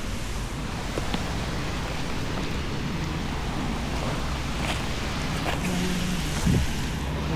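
Steady rushing noise of wind and rain on the microphone, with a few faint knocks.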